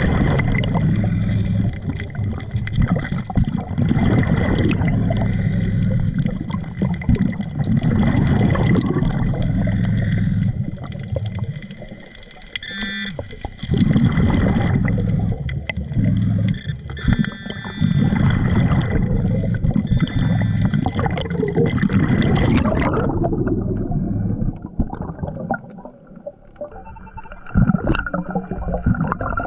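Scuba diver's regulator breathing underwater: long rumbling bursts of exhaled bubbles every few seconds, with short quieter gaps for the inhaled breaths. A few short electronic pips from the metal-detecting gear come through around the middle.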